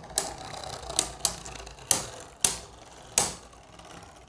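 Two Beyblade spinning tops, a Hasbro Quad Drive Ultimate Valtryek against a Takara Tomy bey, whirring in a plastic stadium and clashing with sharp plastic clacks, about six hits in the first three seconds. Near the end only the spinning is heard.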